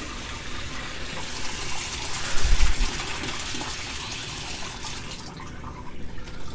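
Water running from a brass hose bib and splashing into the water of an aquaponics tank. The splashing drops away about five seconds in, and there is a low bump about two and a half seconds in.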